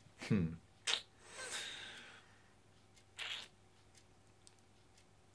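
A man's short hum, followed by breath sounds: a sharp, short one, a longer one over about a second, and another short one about three seconds in.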